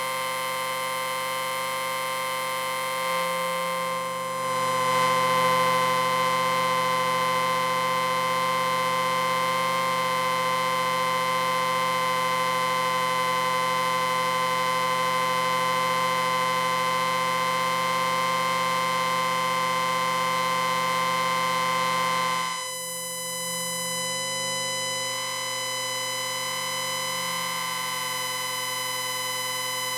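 A science-fiction electric ringing sound effect: a long, sustained electronic drone of many steady pitched tones. It swells louder about four seconds in, then shifts abruptly to a thinner tone about three-quarters of the way through and keeps ringing.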